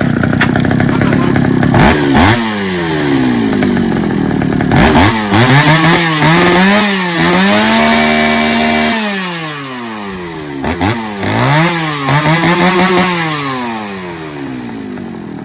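Shindaiwa 350 two-stroke chainsaw running and revved repeatedly with the throttle: the pitch climbs and falls several times, is held at high revs for about a second and a half in the middle, and drops back toward idle near the end.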